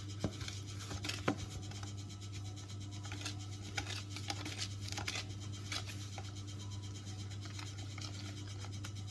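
Metal wire whisk scraping and clicking against a plastic mixing bowl, stirred by hand in irregular strokes, over a steady low hum.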